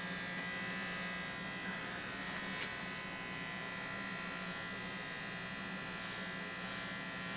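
Corded Remington electric hair clippers running steadily while cutting a woman's hair, a constant even hum.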